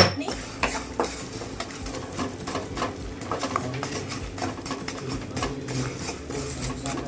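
Spoon stirring and scraping in a kadhai as a lump of jaggery melts in it, with scattered light clinks.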